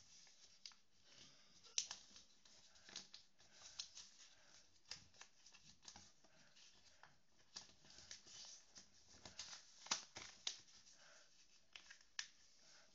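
A sheet of origami paper being folded and creased by hand: faint crisp rustles and sharp clicks scattered throughout, the loudest about two seconds and ten seconds in.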